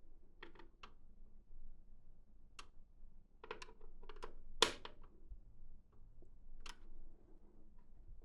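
Irregular light clicks and taps of computer hardware being handled, with one sharper knock about halfway through.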